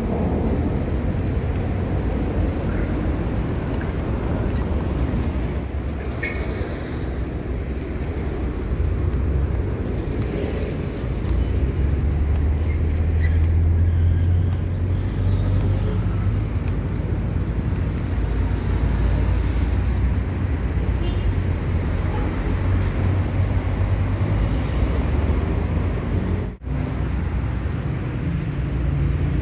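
City street traffic noise: a steady low rumble of passing cars that swells in the middle. There is one sharp click about five seconds in, and the sound briefly cuts out near the end.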